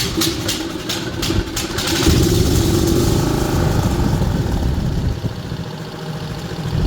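Snapper 2872 riding lawnmower engine turning over with an even, rapid rhythm, catching about two seconds in, then running steadily.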